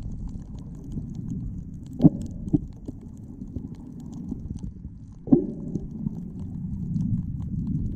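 Muffled underwater rumble of moving water picked up by a submerged camera, with a few sharp thumps about two, two and a half and five seconds in.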